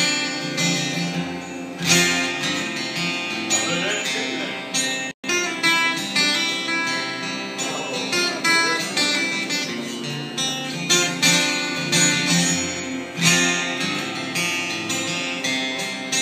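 Acoustic guitar strummed, played alone, with a momentary dropout in the sound about five seconds in.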